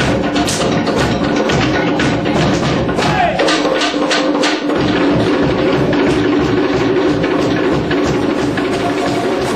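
Live traditional Rapa Nui dance music, loud and steady, driven by a quick percussion beat of sharp knocks over sustained musical tones, with a falling note about three seconds in.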